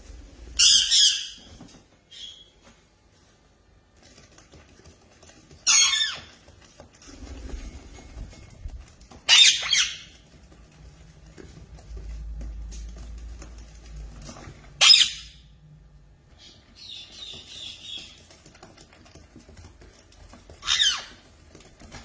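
Parrot squawking: five loud, short squawks a few seconds apart, with a quieter call in between.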